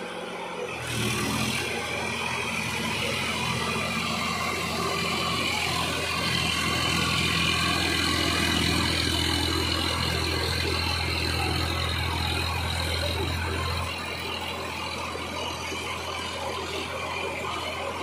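Sonalika DI 745 III tractor's diesel engine running steadily under load, driving a rotavator through wet paddy mud. It gets louder about a second in and drops back a step about 14 seconds in.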